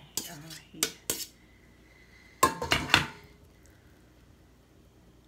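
Metal tongs clinking against a stainless steel colander: a few sharp clinks in the first second, then a quick run of loud ringing clanks about two and a half seconds in, as cooked ground beef is knocked out of the colander.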